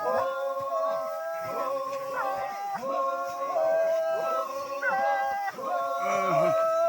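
Music: a melody of long held notes with short slides between them, over a backing of several steady notes.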